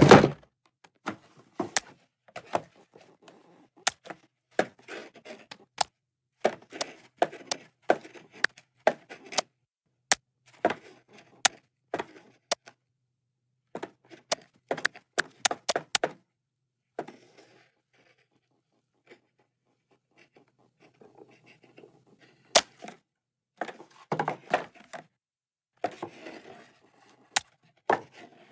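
Scattered small knocks, taps and scrapes of a small box and its lid being handled and pushed about on the floor, with a quiet stretch of a few seconds after the middle and a denser flurry near the end.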